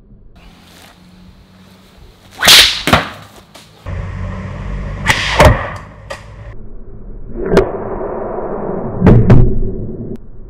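A shepherd's sling being whirled and released, giving sharp whip-like cracks several times, mostly in close pairs, over a steady background hiss.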